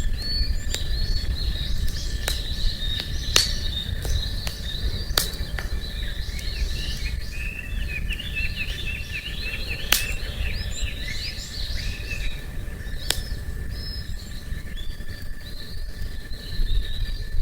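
Wood campfire crackling with sharp pops every second or so over a low steady rumble, while small birds chirp and twitter in the background, busiest around the middle.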